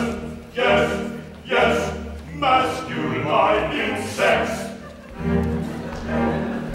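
Operetta music from a live pit orchestra with men's voices singing, in heavy accents about once a second.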